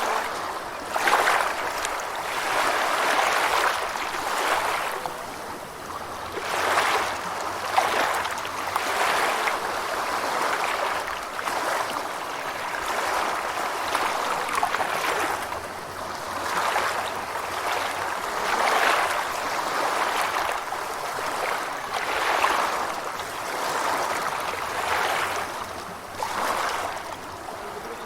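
Gentle ocean waves washing ashore, a rush of surf swelling and falling back about every two seconds.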